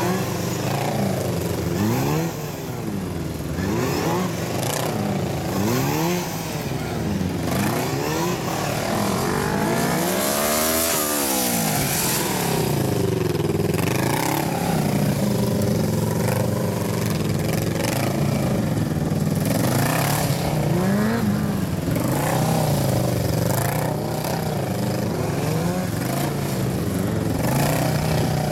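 Motorcycle engine revving up and falling back again and again as the bike accelerates out of and slows into tight turns around cones, its pitch rising and dropping every second or two. One longer, higher rev swells and falls away about ten seconds in.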